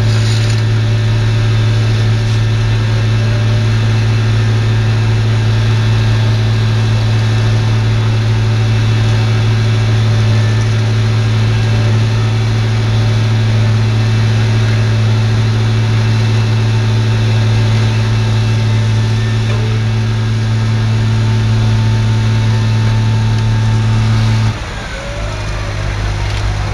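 Heavy diesel engines of an asphalt paver and a dump truck running with a strong, steady hum while the truck tips its load into the paver. The hum drops off abruptly about 24 seconds in.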